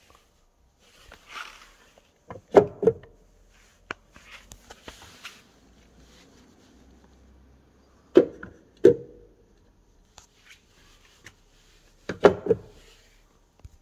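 Hyundai Santa Fe's push-to-open fuel filler door being pressed, three times, each press giving a pair of sharp plastic clicks. The flap's latch does not hold, so the door keeps opening by itself.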